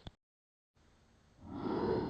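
Designed dinosaur vocalization: a short click and a moment of dead silence, then a deep, breathy exhale that swells in about a second and a half in.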